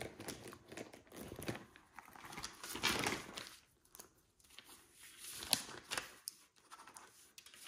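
Paper and planner pages being handled at a desk: short bursts of rustling and crinkling, with a small sharp click about five and a half seconds in.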